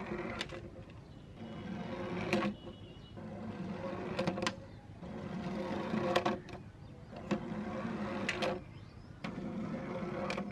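Plastic toy construction trucks rolling across a plywood board: a whirring that swells and drops away about every two seconds, with sharp plastic clicks between runs.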